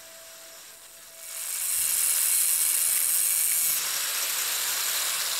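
Electric angle grinder grinding: a harsh, steady hiss that starts about a second in and eases slightly near the end.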